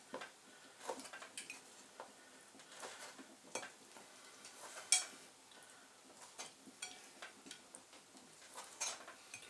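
Knife cutting chicken hearts on a cutting board: irregular light knocks and clicks, the sharpest about five seconds in.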